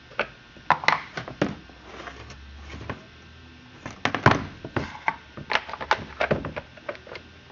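A string of sharp, irregular clicks and knocks as a Stihl 038 Magnum II chainsaw is handled, its plastic and metal parts tapping and clunking.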